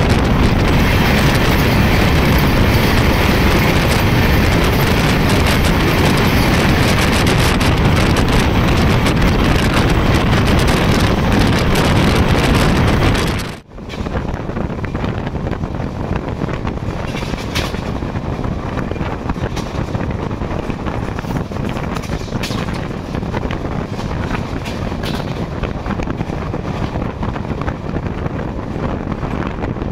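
Express passenger train running at speed, heard from on board: a steady rush of wind and running noise. About fourteen seconds in it cuts abruptly to a quieter, duller running noise with occasional short clicks.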